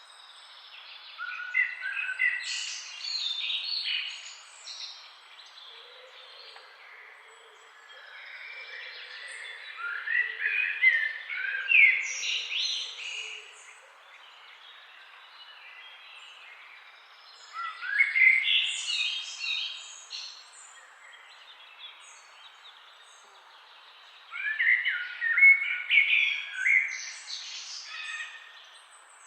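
A songbird singing four separate bursts of quick, varied warbling phrases, each a few seconds long, about every seven to eight seconds. A steady hiss of flowing river water runs beneath.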